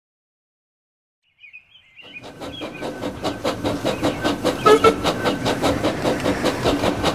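Model train running with a rhythmic chuffing clatter and hiss, about five beats a second, starting about two seconds in after silence and growing louder as it approaches.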